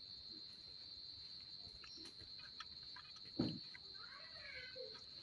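Insects droning steadily at a high pitch. There is one dull thump about three and a half seconds in, and a few faint bird chirps near the end.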